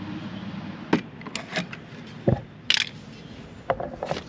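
A plastic wheel liner being cut and handled: a run of sharp clicks, snips and scrapes, with a dull thump a little past two seconds in.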